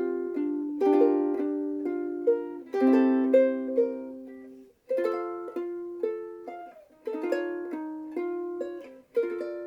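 Famous FS-5G soprano ukulele, with a laminated Hawaiian koa body and fluorocarbon strings, being played. Full chords ring out in the first half; after a brief break about five seconds in, it moves to single picked notes and short note runs.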